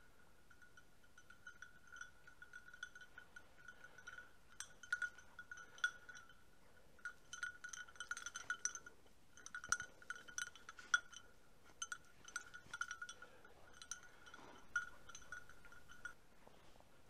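Bell on a hunting setter's collar jingling steadily as the dog quests through the undergrowth, with crackling of dry bracken and brush underfoot. The bell stops near the end, the sign that the dog has stopped on point.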